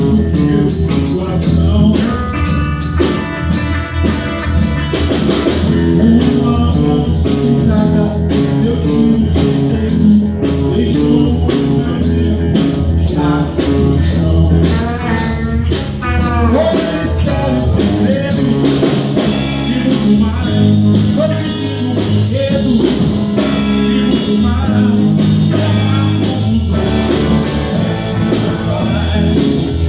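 A band playing a rock arrangement of a Brazilian song on electric guitar, electric bass and drum kit.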